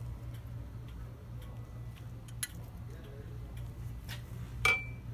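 Faint scattered clicks over a low steady hum. A sharper click comes about halfway through, and a louder metallic tap near the end leaves a short high ring.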